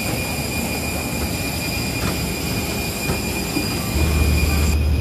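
Steady high-pitched whine of jet aircraft machinery on an airport apron, several fixed tones over a rushing noise. A deep hum joins about four seconds in.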